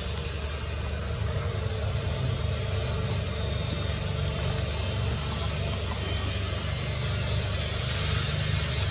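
A steady low rumble with a high hiss over it, continuous and even in level.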